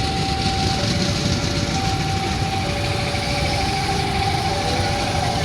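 Railway level-crossing alarm sounding a two-tone electronic warning, switching between a higher and a lower note about once a second, over a loud steady rumble of traffic or a train.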